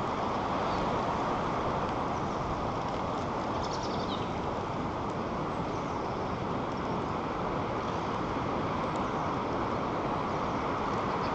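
Strong wind rushing over the nest camera's microphone high in a tree: a steady noise with no breaks. A few faint high chirps come through about four seconds in.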